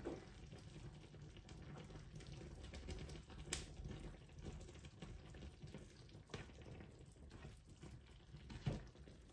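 Tteokbokki in chili-paste sauce simmering faintly in a pan on the stove, with a few light clicks of a utensil against the pan.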